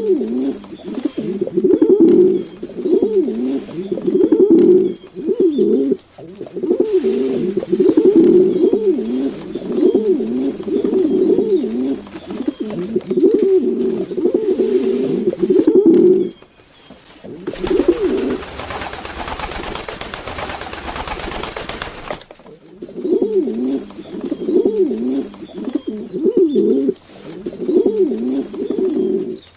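Pigeons cooing, one low rolling coo after another with short breaks. From about two-thirds of the way in, the cooing stops for about four seconds and a steady rushing noise takes its place, then the cooing resumes.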